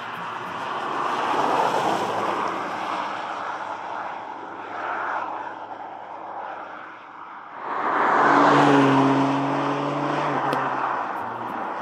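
Ford Puma ST's 1.5-litre turbo petrol engine and tyres heard as the car drives past along a road, the sound swelling and fading. About eight seconds in, the car is much closer and louder, with a clear engine note that dips slightly in pitch as it pulls away.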